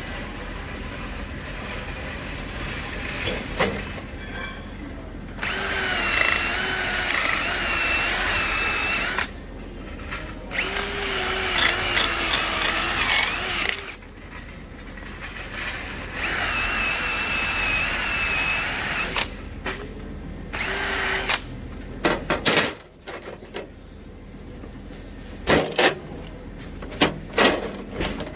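Handheld power drill running in four bursts of a few seconds each, its whine wavering in pitch as it bites under load. A few sharp knocks follow near the end.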